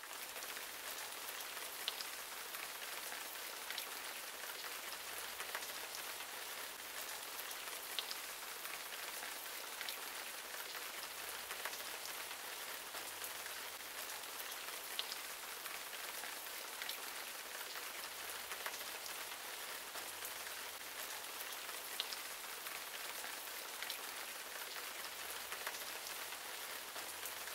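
Steady rain: a constant hiss with sharper single drops ticking every second or two.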